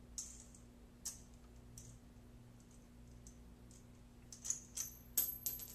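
Faint, scattered small clicks and light rattles of a golf swing guide and its nut and bolt being handled as it is taken off a club's grip: a few single clicks early, then a quicker cluster near the end.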